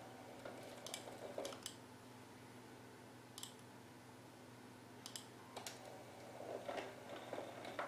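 Faint, scattered clicks from an OO gauge model train as a model diesel shunter inches a rake of tanker wagons over a magnetic decoupler to uncouple them, over a steady low hum.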